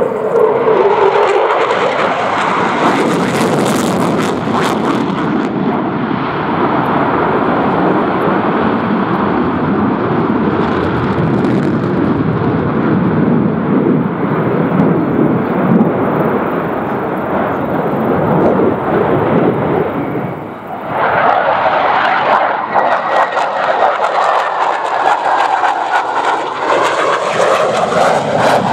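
Sukhoi Su-27 fighter's twin AL-31F afterburning turbofans, a loud continuous jet rush as it manoeuvres overhead. About two-thirds of the way through the sound dips briefly, then comes back harsher, with slowly sweeping whining tones in it.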